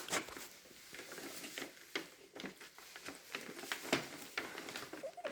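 Gift wrapping paper rustling and crinkling in soft, scattered crackles as a present is unwrapped by hand.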